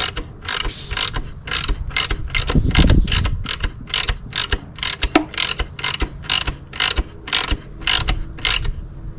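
Hand ratchet clicking in short, even strokes, about two to three per second, as a bolt is worked, stopping near the end.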